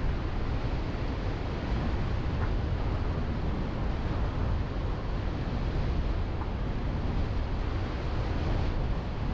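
A car driving, heard as steady wind buffeting on the camera's microphone over tyre and road noise, a constant low rumbling hiss with no distinct engine note.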